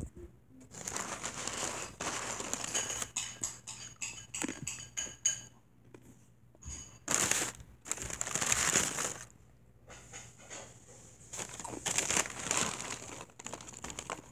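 Something crunchy being chewed close to the microphone, in several bursts of crunching and crackling with short pauses between them.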